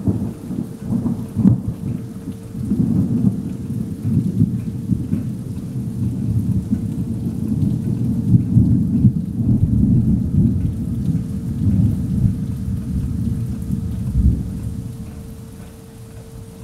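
A long peal of thunder: a sudden crackling onset, then a deep rolling rumble that rises and falls for about fourteen seconds before fading away.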